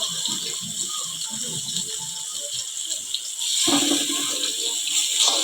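Chopped onion and garlic sizzling in hot oil in a wok, with a spatula scraping and clicking against the pan as they are stirred. The sizzling gets louder about three and a half seconds in.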